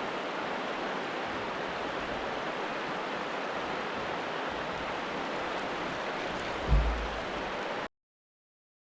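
Steady rushing of running river water. A brief low thump comes near the end, and then the sound cuts off abruptly.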